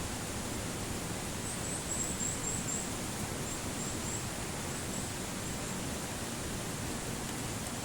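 Steady rushing outdoor noise, with faint high chirps coming in short runs about a second and a half in and again around four and five seconds in.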